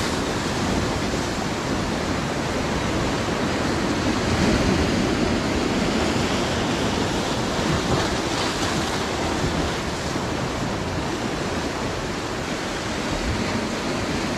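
Sea surf breaking and washing over shore rocks close by, a steady rushing hiss of water that swells a little now and then as waves come in.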